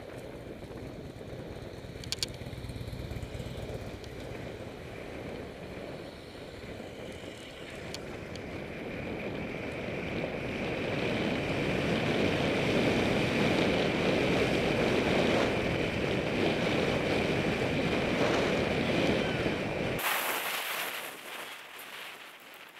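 Wind rushing over a helmet camera's microphone with bicycle tyre noise on asphalt while riding. It grows louder as the bike gathers speed, then drops away suddenly near the end.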